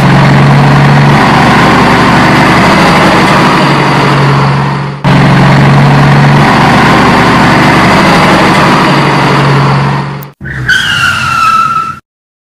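Car racing sound effect: engine noise with tyre skidding, played as two identical stretches of about five seconds each with a brief dip between them. Near the end comes a short falling tone.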